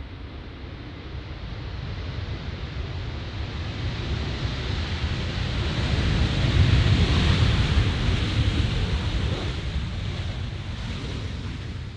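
Jet engine roar from a Boeing 737-based E-7A Wedgetail's CFM56 turbofans as the aircraft rolls past on the runway. It builds steadily to a peak about seven seconds in, then fades.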